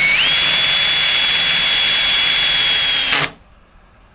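Cordless drill driving a screw into the kayak's plastic: the motor whine rises in pitch, holds steady, then stops suddenly about three seconds in.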